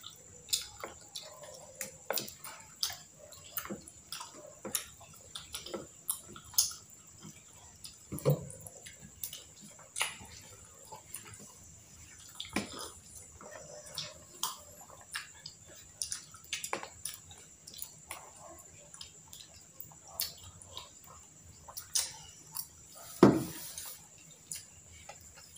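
Close-up eating sounds: wet chewing and mouth clicks of several people eating fried fish balls and kikiam, with forks tapping on a plastic container, in many quick irregular clicks. A low knock about eight seconds in and a louder one near the end.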